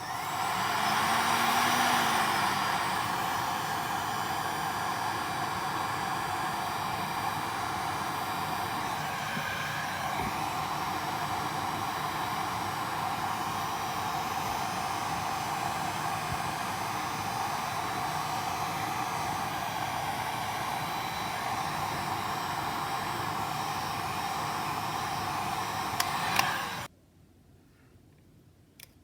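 Handheld hot-air blower running steadily, warming the phone's camera lens glass so that it is easier to pry off. It is a little louder in the first couple of seconds and switches off suddenly near the end.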